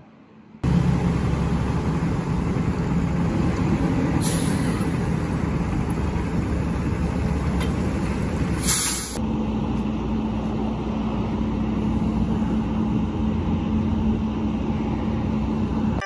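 Heavy diesel logging truck's engine running steadily close by, starting suddenly about half a second in, with two short hisses of air around four seconds and nine seconds in.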